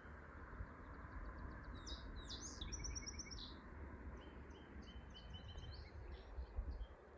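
Several wild songbirds chirping and calling, busiest about two to three seconds in, over a low rumble of wind on the microphone.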